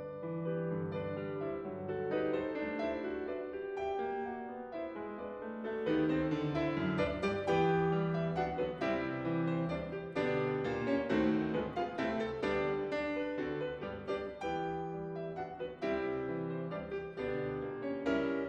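Background solo piano music: a stream of struck notes that grows fuller and louder about six seconds in.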